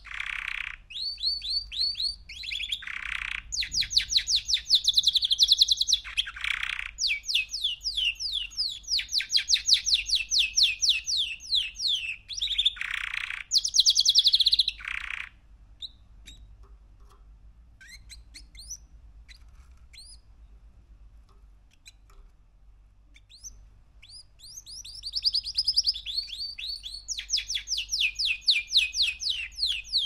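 Three-month-old male canary singing: fast trilled phrases of repeated high falling notes broken by harsh rasping notes. About halfway through the song stops for several seconds, with only a few scattered chirps, then starts up again near the end.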